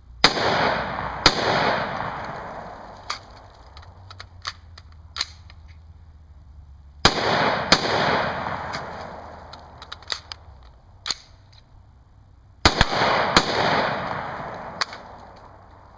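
Glock 19 9mm pistol fired in quick pairs of shots, three pairs a few seconds apart, each shot trailing off in a long echo. Fainter sharp cracks come between the pairs.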